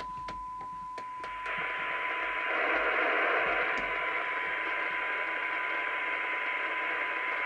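DNT Contact 40 CB radio's receiver playing the signal generator's steady 1 kHz test tone through its speaker. After a few clicks, hiss rises around the tone about a second and a half in and stays: the receiver's noise as the test signal is brought down to its sensitivity limit of about 0.3 microvolt.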